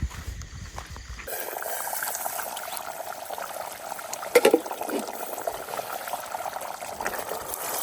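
Water trickling steadily, starting abruptly about a second in after some low handling noise, with a brief higher-pitched sound about four seconds in.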